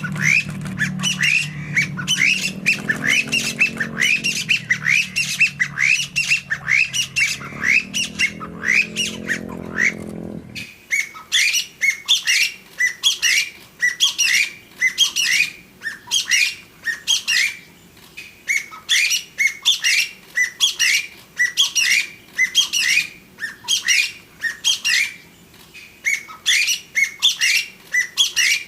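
Chinese bamboo partridge calling: a long run of loud, sharp, upward-sliding notes, about three a second, in phrases with short gaps. A low hum lies under the first third and cuts off suddenly about ten seconds in.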